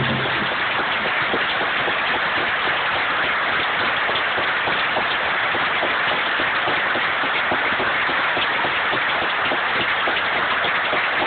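Theatre audience applauding: dense, steady clapping from many hands, recorded through a phone's microphone.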